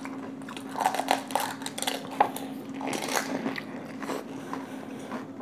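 Panipuri being bitten and chewed: crisp fried puri shells crunching and crackling in the mouth with wet chewing, one sharp crunch a little over two seconds in. A steady low hum runs underneath.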